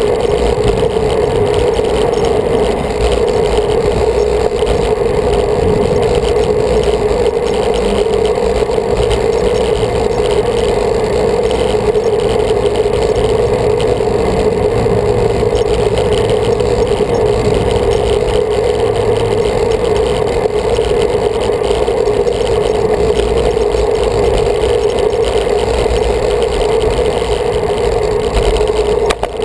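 Steady rush of wind and road noise picked up by a camera mounted on a moving road bike, with a constant droning hum.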